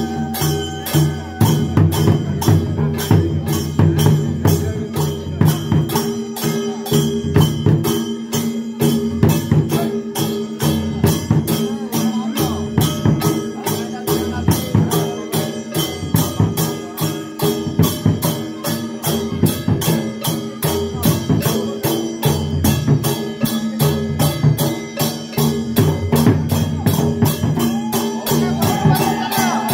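Folk festival music: fast, even metallic percussion strokes, about three to four a second, over a sustained droning tone.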